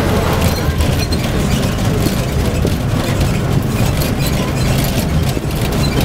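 Bus engine and road noise heard from inside the passenger cabin: a steady low rumble with frequent light rattles.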